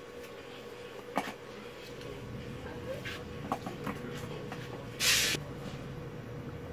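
Small clicks and taps of tools being handled at a soldering bench, over a steady faint hum and low rumble, with one brief loud hiss about five seconds in.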